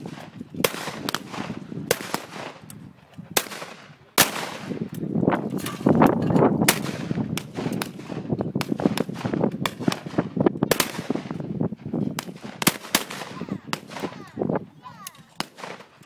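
Several shotguns firing at clay targets in a fast, irregular barrage, shots overlapping from different shooters about twice a second without letup.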